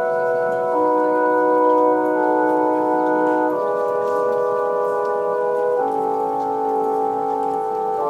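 Organ music: full held chords that change to new chords every two to three seconds.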